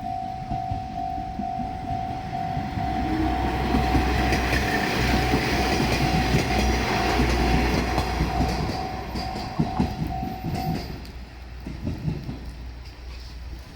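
A Japanese level-crossing warning bell rings in rapid, even repeats while a diesel train runs over the crossing, its rumble loudest midway. The bell stops about eleven seconds in, and a few sharp wheel clacks over the rail joints follow.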